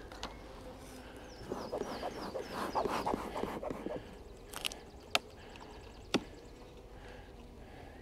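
Wooden beehive frames and a hive tool being handled: irregular scraping and knocking for a couple of seconds, then three sharp clicks spaced about a second apart.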